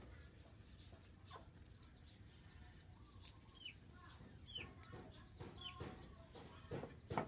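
Chickens clucking, with a few short high calls that drop in pitch, and a run of clucks starting near the end.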